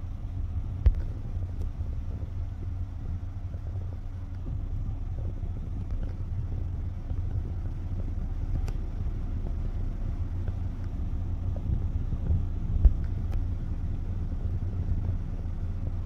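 Heavy vehicle engines running in a steady low rumble, with a sharp knock about a second in and another near the end.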